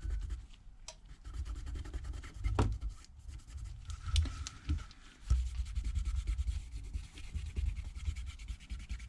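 Rubbing and scraping as the Galaxy S8's frame is wiped clean with alcohol to prepare it for new screen adhesive, with a few small clicks and taps.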